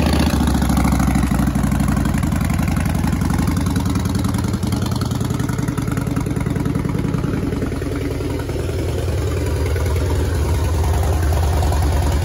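Harley-Davidson Springer Softail's 88-cubic-inch V-twin idling steadily through Vance & Hines aftermarket exhaust pipes, just after starting.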